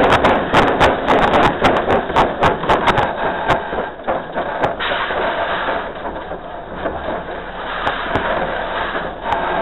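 Narrow-gauge steam train rolling along the track: a steady rush of running noise, with many sharp clanks and knocks over the first three or four seconds, then smoother.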